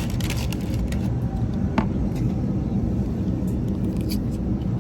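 Steady low rumble of a moving vehicle, with scattered light clicks and rattles.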